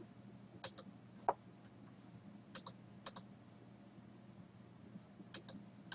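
Sparse clicks of computer keyboard keys, about half a dozen, several in quick pairs, as numbers are typed into an image-editor dialog, over a faint steady low hum.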